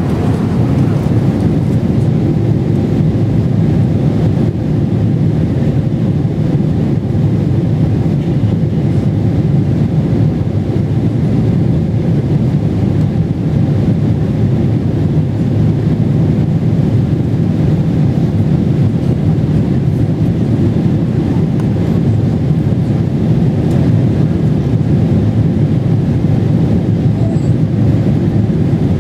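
Steady low cabin noise inside a Boeing 777-300ER in descent: the rush of air and engine noise heard from a window seat, unchanging throughout.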